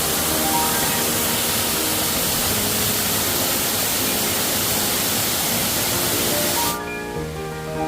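Loud, steady rush of a waterfall's falling water, cutting off suddenly near the end. Gentle background music with marimba-like notes plays underneath throughout and carries on alone after the cut.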